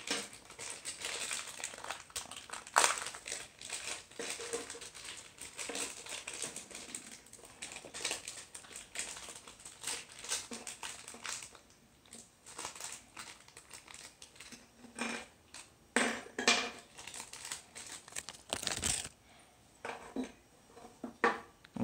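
A thin clear plastic bag crinkling and rustling as hands pull LEGO pieces out of it, with scattered sharp clicks of the plastic pieces, a few of them louder.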